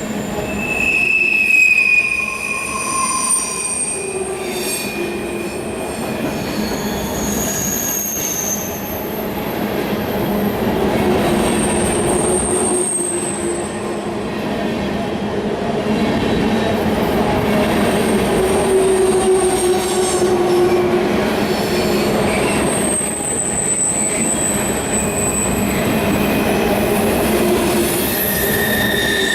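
Freight train cars rolling past, a steady rumble of wheels on rail with high-pitched wheel squeals that rise up and die away again and again at several different pitches.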